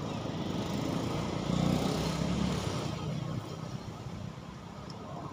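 A motor vehicle's engine passing by, growing louder to a peak about two seconds in and then fading.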